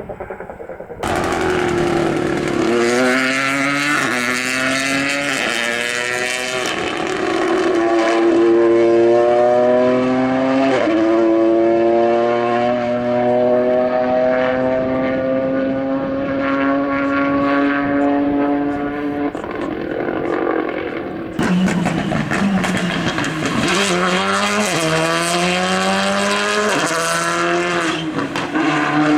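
Rally cars accelerating hard through the gears, the engine note climbing and dropping back at each quick upshift. In the middle one car pulls for several seconds in a single gear, pitch rising slowly, and after an abrupt change about two-thirds of the way through another run of rapid upshifts follows.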